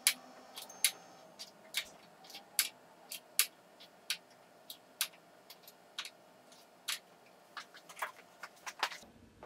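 Small glass gel polish bottles clicking as they are picked up and set down on a shelf and knock against one another: sharp, irregular clinks, about two a second.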